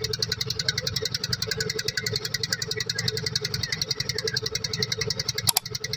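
Motor boat's engine running steadily, with a rapid, even beat of about a dozen pulses a second. A single sharp click about five and a half seconds in.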